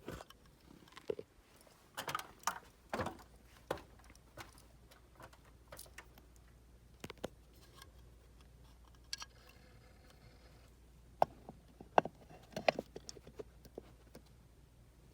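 Scattered clicks and light knocks of a plastic dome camera housing being handled and fitted back into place, with a few sharp clicks a little before the end.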